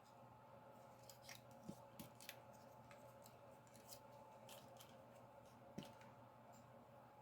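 Faint clicks and small knocks of a Kenner Beast Wars Cheetor plastic action figure, its joints and parts being turned and folded by hand during transformation, over a low steady hum.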